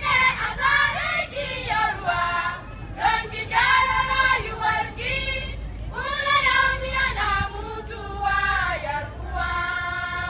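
A choir of young women singing together, unaccompanied, in loud phrases with short breaks between them. Near the end a steady, unwavering high tone comes in.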